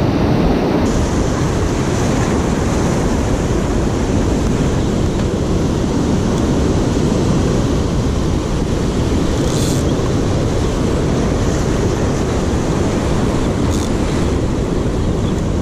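Ocean surf breaking and washing over shoreline rocks, a steady loud rush, with wind rumbling on the microphone.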